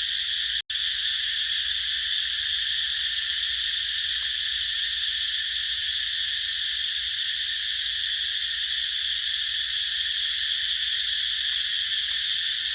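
A dense chorus of cicadas buzzing as one continuous, steady, high-pitched drone. It cuts out completely for a split second just after the start.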